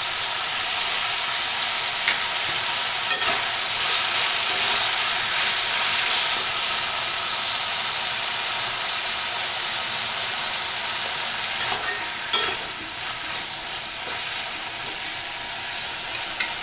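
Long beans and potatoes sizzling steadily as they are stir-fried over high heat in a karahi, with a few sharp clicks as the vegetables are stirred.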